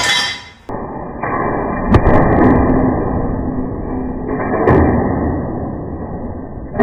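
Homemade drop-weight crusher smashing items: two sharp heavy impacts, about two and a half seconds apart, over a steady rumbling noise.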